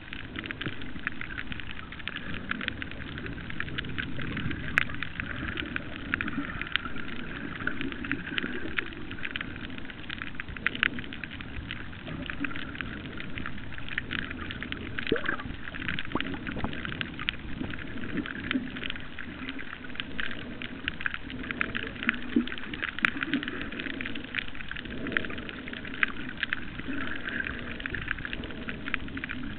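Underwater reef noise: a dense, continuous crackle of countless tiny snaps from snapping shrimp, over a low rumble of moving water.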